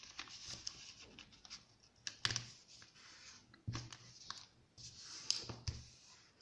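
A sheet of origami paper being folded and creased by hand: soft rustling and crinkling, with a few short, sharper clicks as the fold is pressed flat.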